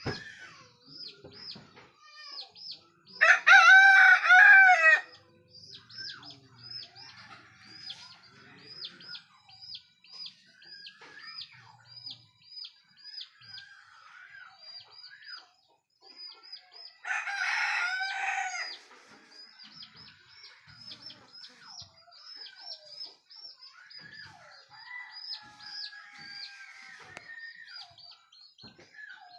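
Roosters crowing at dawn: one loud, close crow about three seconds in, lasting under two seconds, and a second, fainter crow at about seventeen seconds. Underneath, a bird keeps up a run of short high chirps, several a second.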